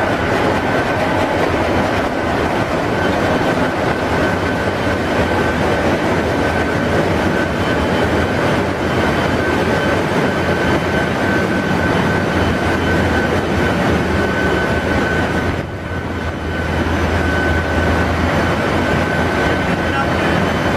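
Steady, loud machinery din of a ship's engine room, with a low hum and a thin high whine over it. It dips briefly about three-quarters of the way through.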